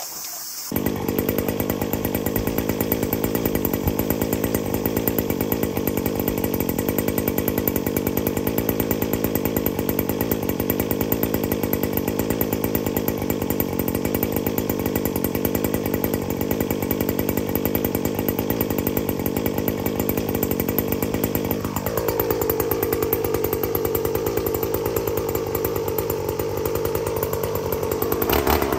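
Shindaiwa RM3032 30.5cc two-stroke brush cutter running at high revs with its nylon-cord head cutting grass. It starts abruptly under a second in, and its pitch drops about 22 seconds in and holds lower.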